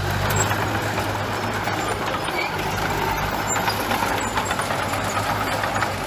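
Heavy diesel construction machinery running steadily, a low engine drone with scattered knocks and rattles over it.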